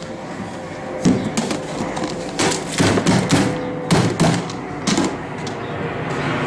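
Knocks and thumps of a brown plastic compost caddy against a plastic wheelie bin as the caddy is tipped out into it, about eight sharp knocks over the first five seconds.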